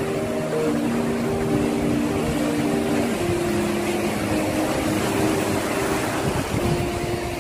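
Sea waves breaking and foaming surf washing in, a steady rushing noise, under soft background music with slow held notes.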